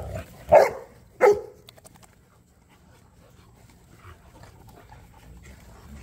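Large mastiff-type dogs play-wrestling: one gives two short, loud vocal sounds, like barks, about half a second apart near the start, then only quieter panting and rustling follow.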